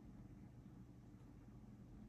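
Near silence: a faint, steady low hum of background noise.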